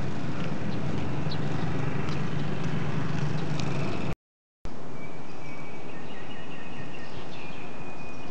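Steady outdoor ambient noise with a low hum, cut off by a half-second dropout about four seconds in; after it the noise carries on with a faint, steady high whistling tone.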